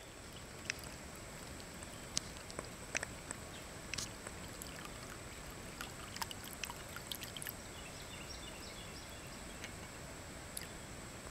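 Water trickling steadily from the spout of a ceramic pet drinking fountain into its bowl, with scattered sharp drips and ticks.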